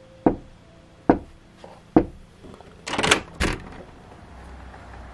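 Three sharp knocks on a front door with frosted glass panels, a little under a second apart, then the clatter of the door being unlatched and pulled open, after which a low rumble of outdoor air comes in.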